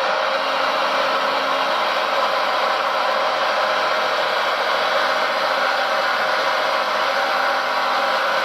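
Steady, even whir of a radio-controlled model machine's small electric motor running.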